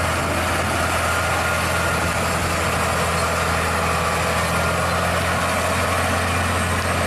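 Scania truck's diesel engine running steadily while pulling two loaded side-tipper trailers: a deep, even drone with no change in pitch over a broad rumble of road noise.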